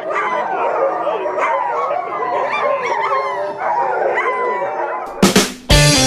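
A whole team of harnessed sled dogs calling at once, a tangle of overlapping rising and falling cries: the excited noise dogs make when they want to run. About five seconds in, rock guitar music starts over them.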